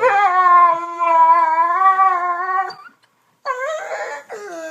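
A dog howls one long, steady howl of about three seconds. After a short break comes another whining, wavering dog cry.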